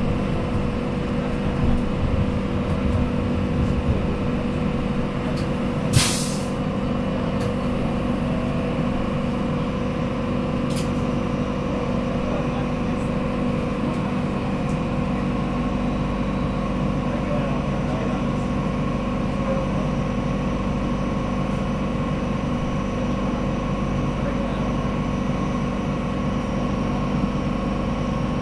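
Electric commuter train running, heard from inside the passenger car: a steady rumble with a constant hum, a few faint clicks, and one short, sharp hiss about six seconds in.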